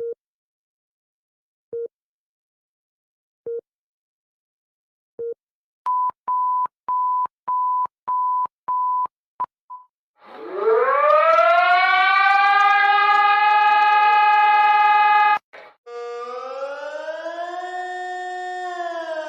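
Electronic alarm beeps: single short beeps about every second and three-quarters, then from about six seconds in a quicker run of higher beeps. About ten seconds in, a civil defense siren winds up to a steady tone, cuts off suddenly about fifteen seconds in, and a second siren tone starts and falls in pitch near the end.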